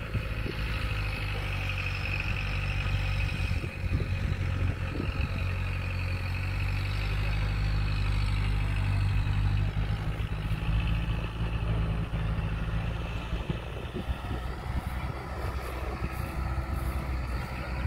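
A vehicle engine running steadily with a low hum that drops off about fourteen seconds in.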